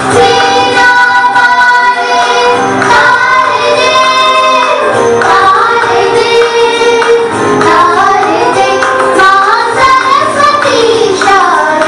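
Indian devotional song: a high female voice singing long held notes that glide and ornament between pitches, over instrumental accompaniment.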